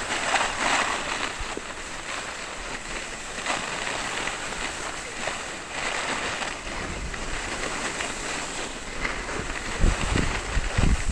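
Skis sliding and scraping over groomed, tracked snow on a downhill run, the hiss swelling and fading with the turns. Wind buffets the microphone near the end.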